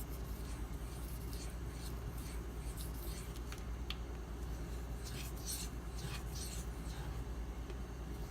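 Steel knife blade being stroked by hand across a wet fine-grit waterstone with slurry, giving irregular scraping rasps, heaviest around the middle. A steady low hum runs underneath.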